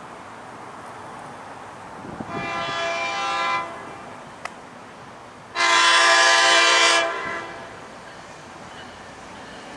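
An approaching train's locomotive horn sounding two blasts, each a chord of several tones: a fainter one about two seconds in, then a louder one lasting about a second and a half.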